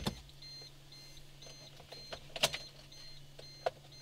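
Car's warning chime beeping in a steady run of short, high beeps, over a low steady hum. A single sharp knock about two and a half seconds in.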